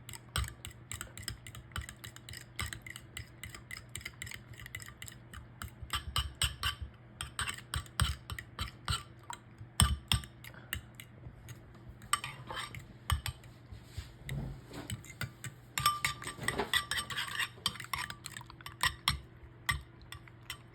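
Whisk beating eggs in a mixing bowl: quick, irregular clinking and tapping of the whisk against the bowl, keeping up through the whole stretch, with a few louder knocks.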